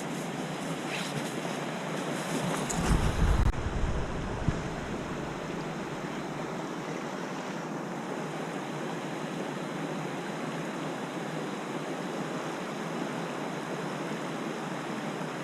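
Mountain stream water rushing steadily. About three seconds in there is a brief low rumble on the microphone.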